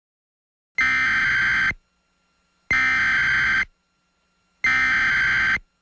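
Emergency Alert System SAME digital data bursts: three buzzy, warbling bursts of about a second each, a second apart, which carry the coded alert header.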